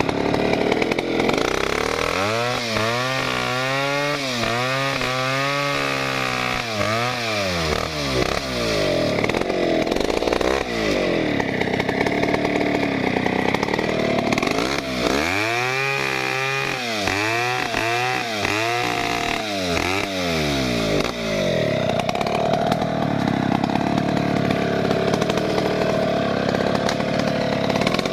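Stihl 070 two-stroke chainsaw cutting through a log, running at high revs throughout. Its engine pitch swings up and down repeatedly a couple of seconds in and again about halfway through, and holds steady in between.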